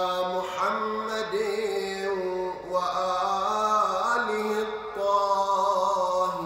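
A man chanting an Arabic supplication solo, in long held melodic notes that waver slightly and break into new phrases every second or two.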